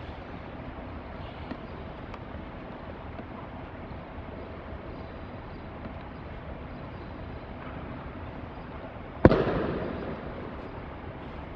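One sharp slap of a body hitting the tatami mat in a breakfall as the partner is thrown, about nine seconds in, with a reverberant tail that dies away over about a second in the large hall, over a steady tape hiss.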